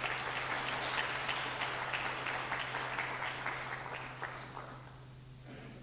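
Audience applauding with dense clapping that thins out and dies away about four to five seconds in.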